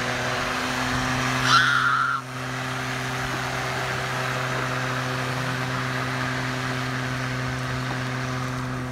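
Steady hum of a small electric motor, with street traffic noise behind it and a short, louder sound about one and a half seconds in.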